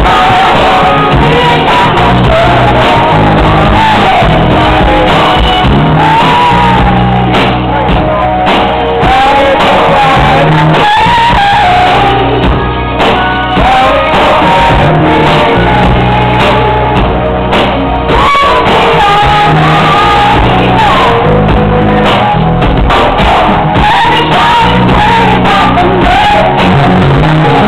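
A woman singing R&B live, backed by a band with bass guitar and drums, loud.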